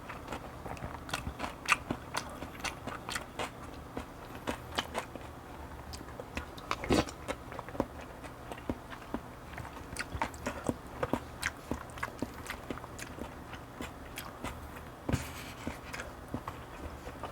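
Close-miked chewing and eating mouth sounds: many small irregular clicks, with a sharper, louder knock about seven seconds in and another a couple of seconds before the end.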